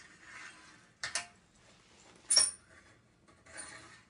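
Rustling and light knocks as a person wearing a backpack clambers into a fireplace, with a sharp metallic clink about two and a half seconds in.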